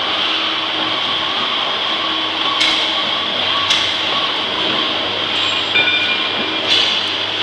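Powder stick packing machine running: a steady mechanical noise with four sharp clacks, the first about two and a half seconds in.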